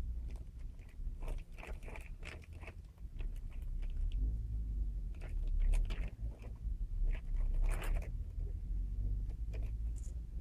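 Kittens and their calico mother scuffling on a cloth sheet and against a plastic bag: a run of short, irregular crinkling rustles and scratches over a low steady hum, with a longer rustle a little past the middle.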